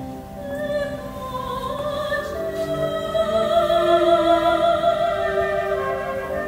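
Operatic soprano singing with wide vibrato over a chamber orchestra's strings in a contemporary classical piece; her line climbs and then holds a long note from about two and a half seconds in.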